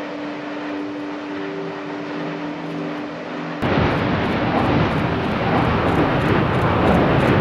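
Erupting volcanic vent: a rushing roar, then about three and a half seconds in a sudden, much louder roar as the vent blasts out ash and glowing ejecta.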